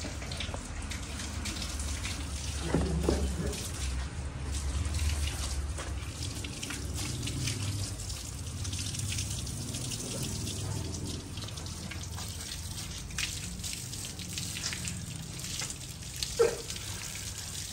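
Tap water running and splashing, with drips, as a dog is washed under it.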